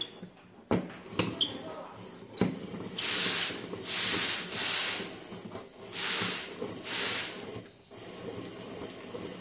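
Manual stainless-steel spiral potato cutter: a few metal knocks and clicks as the crank and potato are set, then about five short scraping strokes as the blade slices a raw potato into a continuous spiral while the crank is turned.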